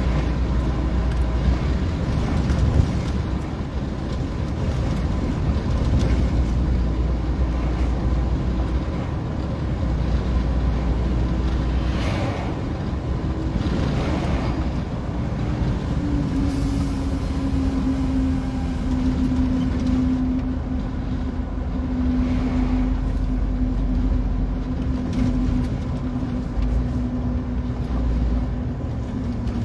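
Heavy truck's engine and road noise heard inside the cab while driving, a steady drone whose engine note drops a little after about the midway point. An oncoming truck rushes past about halfway through.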